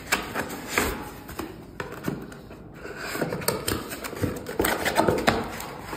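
Cardboard packaging being handled by hand: irregular taps, scrapes and rustles as a foam insert is lifted out and an inner cardboard box is opened, with the plastic bag around a cable crinkling.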